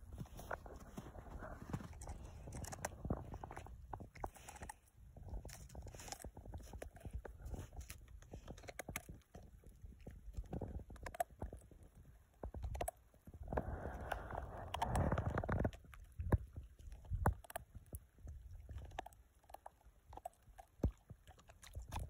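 Snow crunching in uneven clicks and crackles, over a low rumble of wind on the microphone; a louder rush of noise comes about fourteen seconds in and lasts a couple of seconds.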